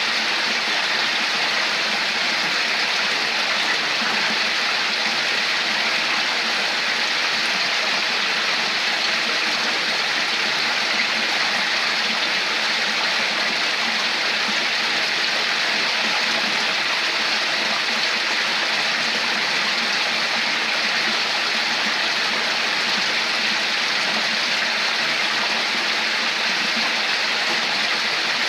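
Running water flowing steadily, a constant even rush with no breaks.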